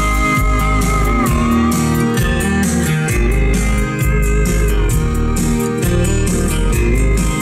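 Country song playing loud on a car's Sony touchscreen stereo, heard inside the cabin: guitar over a steady bass beat, with a held guitar note that bends down about a second in.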